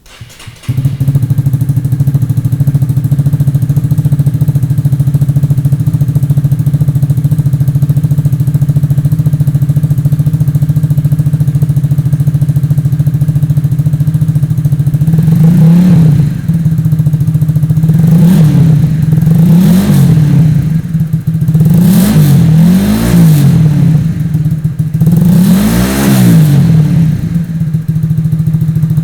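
Honda CBR150R's single-cylinder engine through a 3Tech Tridente F20 aftermarket exhaust, coming in about a second in and idling steadily, then blipped about six times from around fifteen seconds in, each rev rising and falling, before settling back to idle near the end.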